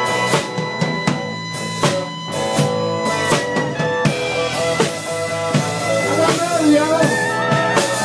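Live rock band playing an instrumental passage: a drum kit keeps the beat with snare and bass drum under electric guitar, and a saxophone plays a melody line that comes forward about three seconds in.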